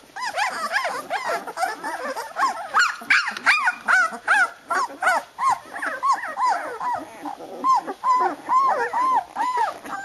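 Newborn flat-coated retriever puppies, 13 days old, crying together in a litter. Many short, high cries, each rising and falling in pitch, overlap several a second.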